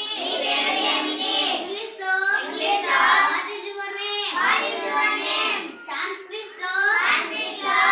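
Children's voices reciting lesson phrases aloud in a high sing-song chant, in short phrases of about a second with brief breaks between them.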